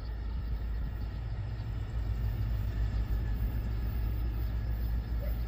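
Low, uneven outdoor rumble, heavy at the bottom end, with no distinct single source standing out.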